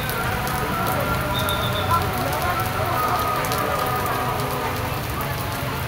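Steady rain falling on pop-up tent canopies and wet pavement: a constant hiss with many small drop ticks. Faint voices murmur underneath.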